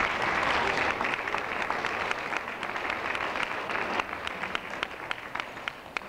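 Audience applauding, dense at first and thinning into scattered single claps in the last two seconds.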